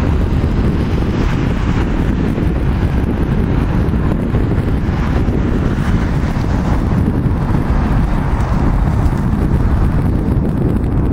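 Heavy wind buffeting the microphone, a loud, steady low rumble with no distinct events.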